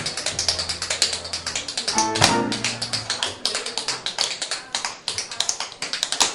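Tap dancing: metal taps on shoes striking the floor in fast, continuous rhythmic runs of many taps a second, over a small live jazz band with upright bass.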